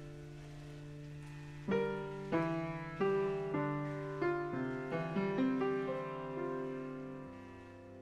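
Background piano music: a held chord, then from about two seconds in a slow melody of struck notes, each ringing and dying away, fading out near the end.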